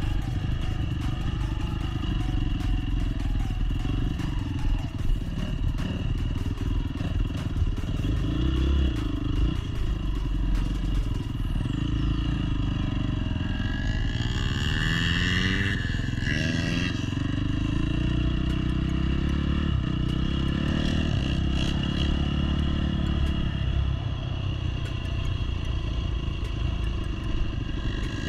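Dirt bike engine running as it is ridden, its revs rising and falling, with a stronger rev sweeping up and back down about halfway through.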